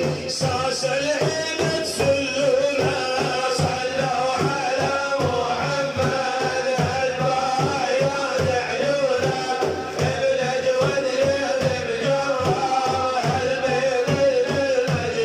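Male voice chanting an Arabic religious praise song (madih) in long melodic lines over a steady, fast drum beat.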